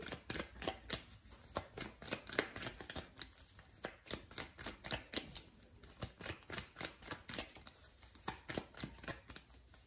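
A deck of cards being shuffled by hand: an uneven run of short card clicks and slaps, several a second.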